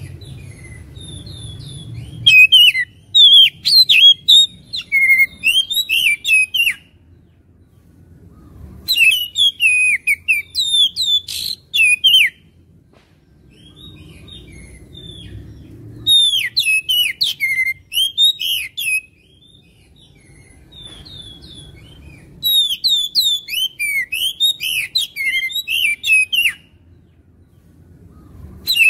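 Oriental magpie-robin (kacer) singing in rapid, varied bursts of high whistles and chirps. Four phrases of three to four seconds each are separated by short pauses, and another phrase begins at the end. This is a lure (pancingan) song meant to provoke a kept kacer into singing back combatively.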